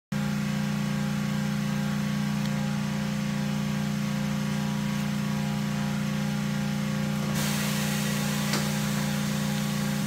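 Steady electric machine hum in a tire shop, with a hiss of escaping air starting about seven seconds in.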